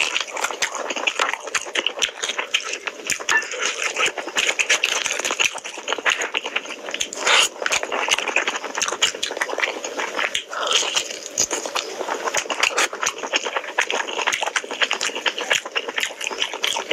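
Close-miked, wet eating sounds of a person eating curry and rice by hand: steady chewing and lip smacking full of quick clicks, with fingers squishing rice and gravy together.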